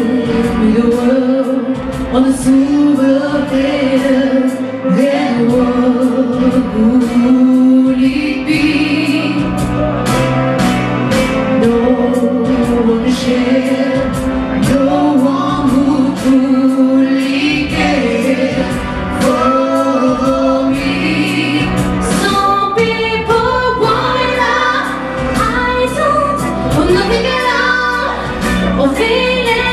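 A vocal group sings in harmony with a female lead, over accompaniment that has a steady beat.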